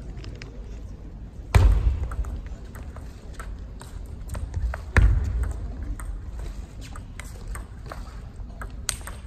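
Table tennis rally: a run of light, sharp clicks of the ball off the bats and table, with two heavy thuds, about a second and a half in and again about five seconds in.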